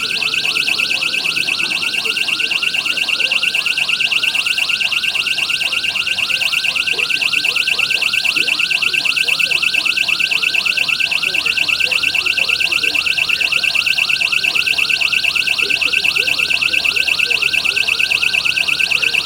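Steady electronic alarm-like buzzing tone with a short rising chirp repeating evenly about five times a second, unchanged throughout.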